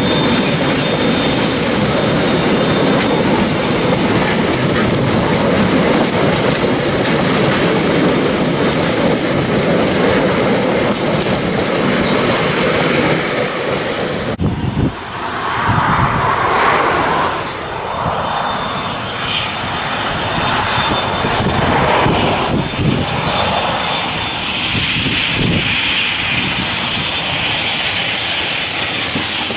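Passenger carriages of a steam-hauled train rolling past, wheels on the rails with a high squeal from the wheels. About halfway through the sound cuts to the NZR Ja-class 4-8-2 steam locomotive Ja 1271 approaching with its train, its pulsing running sound building as it comes close.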